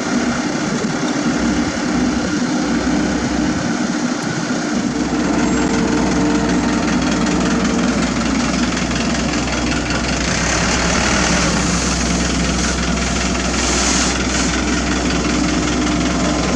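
Diesel engines of heavy road-paving machinery running steadily. A deep, even hum comes in about five seconds in and holds.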